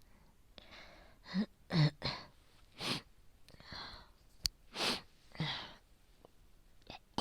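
A woman with a chest infection, asthma and bronchitis coughing hard: about seven short, harsh coughs in a broken run, from her heavy phlegm.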